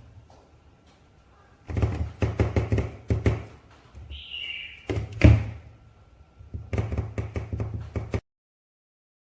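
Clusters of knocks and taps from hard objects being handled, with a short squeak near the middle and one heavier knock just after it. The sound cuts off abruptly about a second before the end.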